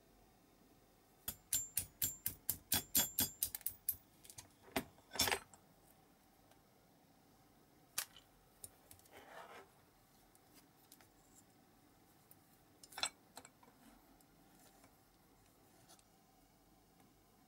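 Small die-cast metal parts of a Corgi Simon Snorkel model's boom clicking and clinking as they are handled and pinned together: a quick run of light metallic clicks, about five a second, then a few scattered single clicks and a short scrape.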